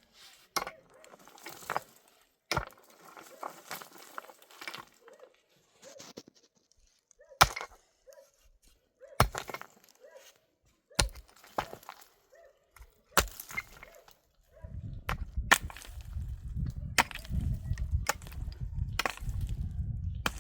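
Repeated sharp chopping strikes of a hand tool, one every one to two seconds, with lighter knocks between them. About two-thirds of the way in, a steady low rumble joins the strikes.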